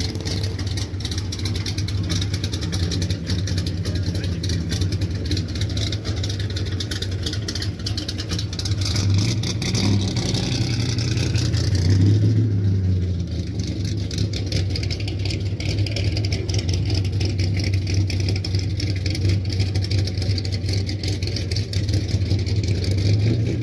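A car engine running with a deep, steady rumble, rising briefly about ten and again about twelve seconds in as it is revved.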